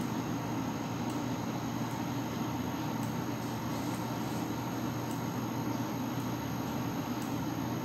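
Steady low background hum and hiss, with faint strokes of a marker drawing short vertical lines on a workbook page, roughly one a second.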